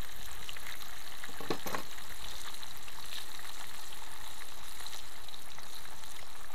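Hot oil sizzling and crackling steadily in a deep pan of frying flounder.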